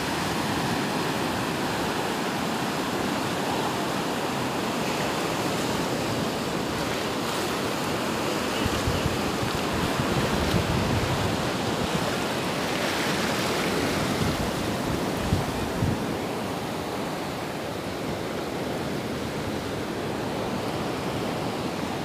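Small sea waves breaking and washing up over shallow sand: a steady surf wash.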